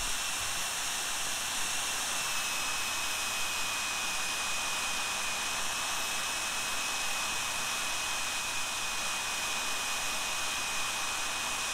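Jet Central Rabbit model turbine engine running at high speed: a steady high whine over a rushing hiss. The whine drops slightly in pitch a couple of seconds in as the engine is brought down from about 122,000 toward 112,000 RPM, away from the 120,000 RPM range where it tends to surge.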